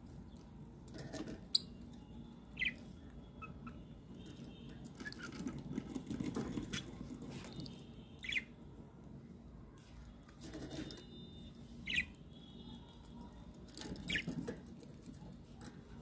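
Budgerigar in a cage giving a few short, separate chirps, with light rustling, scratching and taps as it moves about the perch and picks at leafy greens.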